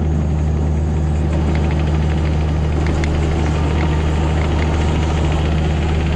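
Bobcat E26 mini excavator's diesel engine running steadily at a constant speed, with faint scattered clicks and clanks over the drone.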